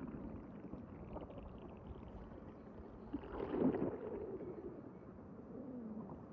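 A human stomach rumbling and gurgling. A louder gurgle swells about three and a half seconds in, and a lower growl slides down in pitch near the end.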